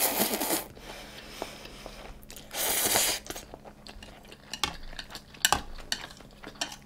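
Close-miked eating sounds: two short hissing bursts about a second long, then a series of light clicks of utensils against a dish.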